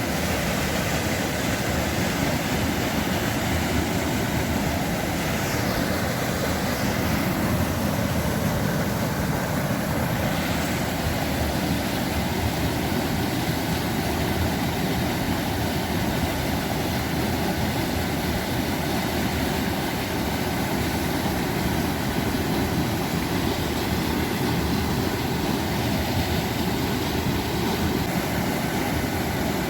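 Steady, unbroken roar of rushing mountain-river water.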